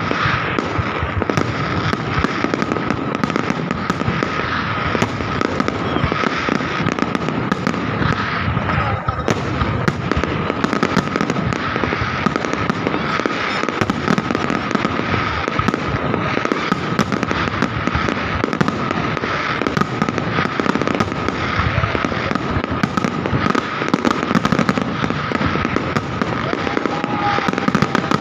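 Fireworks display going off without a break: a dense, rapid mix of crackling and banging as many shells burst, with a steady high tone running underneath.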